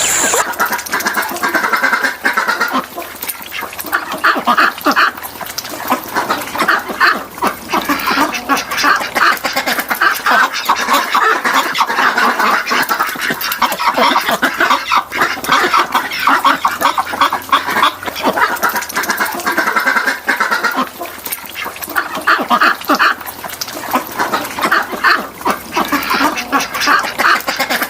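A flock of birds calling over one another, a dense, unbroken run of short repeated calls.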